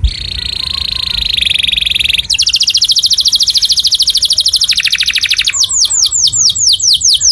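A songbird singing a loud, fast song made of rolling trills: a rapid trill that quickens slightly, then from about two seconds in a higher, faster trill, and from about five and a half seconds a series of downward-sweeping whistled notes, about five a second.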